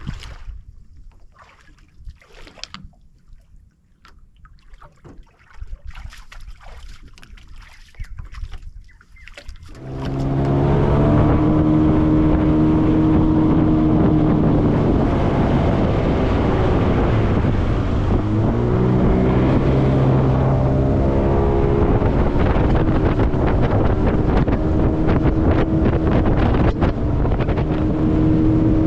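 A boat's outboard motor running under way, with wind and water rush. It comes in loudly about a third of the way in, and its revs drop and pick up again around the middle.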